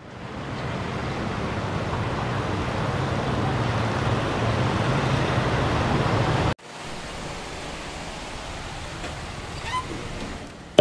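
Steady street traffic noise, dropping suddenly to a quieter, even hiss about six and a half seconds in.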